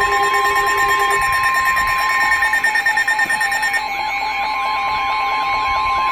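Several weather-alert receivers sounding at once: a steady high alarm tone with rapid pulsing beeps under it, a lower tone that stops about a second in, and a warbling tone that starts about four seconds in. It is the alert that precedes a severe thunderstorm warning broadcast.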